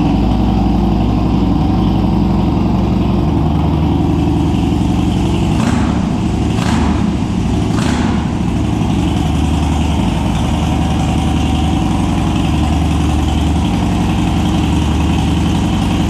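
Harley-Davidson Dyna's air-cooled Twin Cam 96 V-twin idling through a two-into-one aftermarket exhaust, running on a newly installed ThunderMax ECU's base map. Three short sharper sounds come about six to eight seconds in.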